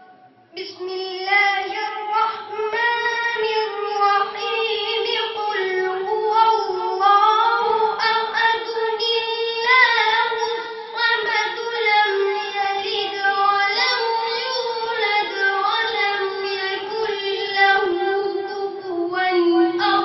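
A young boy's voice reciting the Quran in melodic tilawat, chanting long held notes that bend and waver in pitch, starting about half a second in.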